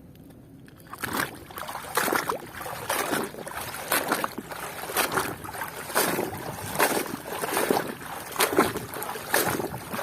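Water sloshing and splashing in repeated surges, about one or two a second, as a toy excavator is swished and scrubbed in a tub of water; it starts about a second in.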